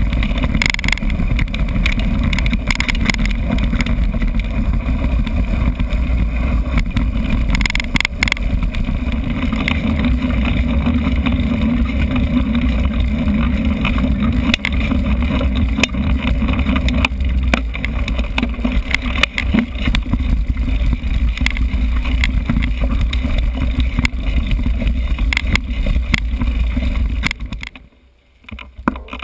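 Wind buffeting a GoPro camera's microphone during a fast mountain-bike ride: a steady low rumble with scattered rattles and clicks from the bike over rough ground. It drops off sharply near the end.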